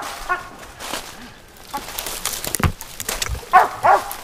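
A hunting dog barking: one short bark near the start and two more near the end. In between, brush and dry leaves rustle and crunch underfoot.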